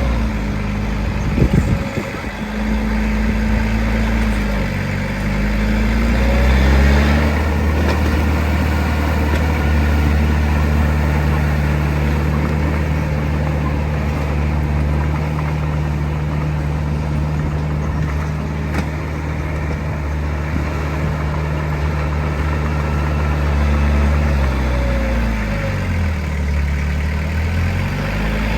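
Heavy diesel engine of earthmoving machinery running steadily, its pitch dipping and coming back up about four seconds in and again near the end, with a brief cluster of knocks about a second and a half in.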